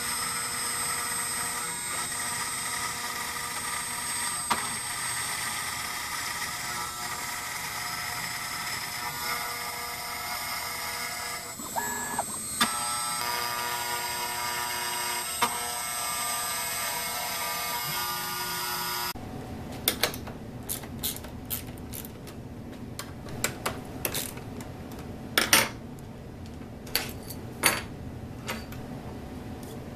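CNC router milling aluminum: the spindle and end mill give a steady high whine of several tones, briefly changing about twelve seconds in. The whine stops abruptly about two-thirds of the way through, and a series of sharp clicks and knocks follows as the aluminum part is handled on the machine table.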